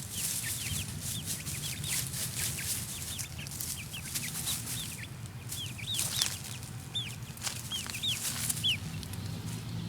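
Five-week-old chicks peeping, with many short high chirps scattered through, over a crackle of them scratching in dry leaves.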